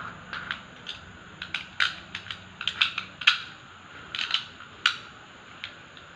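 Metal automatic transmission parts (a toothed hub and its inner ring) clicking and clinking as they are turned over and fitted together by hand, in an uneven run of a dozen or so sharp clicks that stops about a second before the end.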